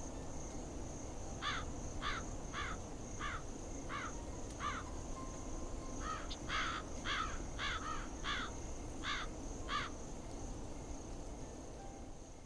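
Crickets chirring steadily in a high, even trill over a low background hum. A crow caws about a dozen times in short harsh calls, starting about a second and a half in, pausing briefly near the middle, then coming faster before stopping near the end.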